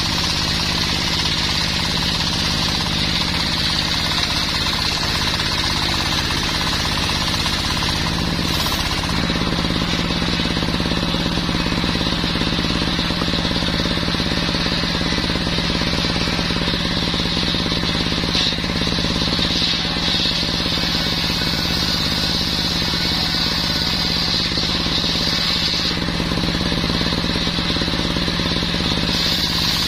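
Engine-driven circular saw blade cutting mahogany: a steady engine drone with a high, steady cutting whine over it.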